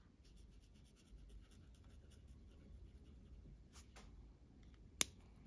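Water-based marker tip scratching across paper in many short colouring strokes, faint, with a sharp click about five seconds in.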